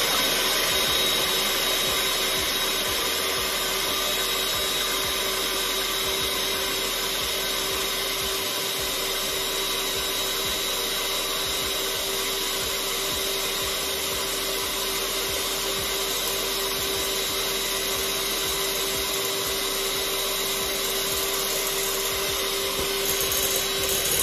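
Electric hand mixer running at a steady speed, its beaters whisking four raw eggs in a glass bowl: an even motor hum with a steady whine.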